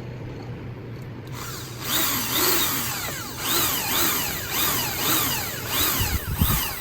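Electric drill running in short trigger pulses, its motor whine rising and falling about twice a second, starting about a second and a half in.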